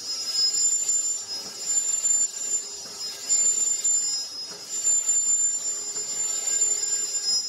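Hand-spun rear wheel of a Ford Focus with the brake pads rubbing on the disc, giving a high-pitched squeal over a scraping hiss that swells and fades repeatedly as the wheel turns. The squeal is a sign of the worn rear brake pads.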